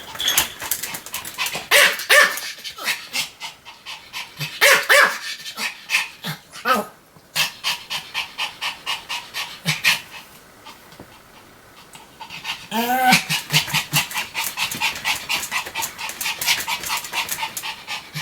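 Pomeranian barking in short bursts, with quick rhythmic panting between the barks.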